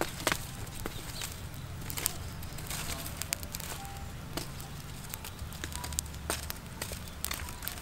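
Small open wood-and-charcoal fire crackling, with scattered sharp pops and clicks as the burning embers are poked and raked with a wooden stick.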